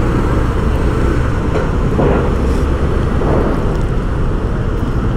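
Steady low rumble of road traffic, with vehicles running close by.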